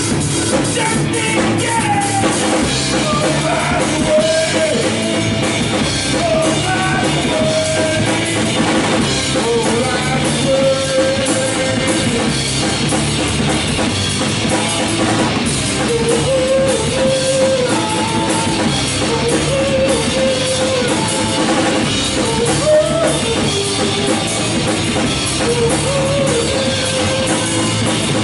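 Live rock band playing: a drum kit and guitars, with a melodic lead line that holds and bends notes.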